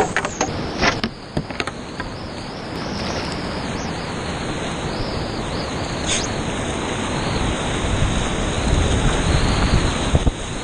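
Whitewater of the Rio Grande rushing steadily around a kayak, with a few sharp knocks in the first two seconds; the rush grows louder near the end as the boat paddles into the rapid.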